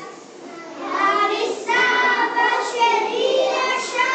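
A group of young children singing together, picking up again after a short pause about a second in.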